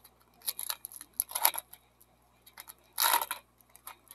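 Stiff baseball cards being flipped and slid against one another in the hands, crisp snapping and rustling in three short bursts: about half a second in, around a second and a half, and near three seconds.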